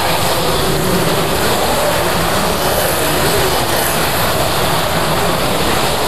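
Several 1/32-scale Carrera Digital slot cars racing on the track, their small electric motors whining under a steady loud rush of noise, with the whine gliding in pitch as cars pass.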